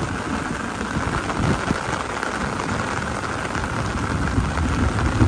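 Heavy rain falling steadily on wet ground and puddles, an even hiss without a break.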